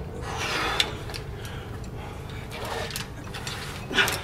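A caver climbing a rope on ascenders: a few sharp metal clicks and short scraping rustles of rope and gear as he moves up. The loudest click and scrape comes near the end.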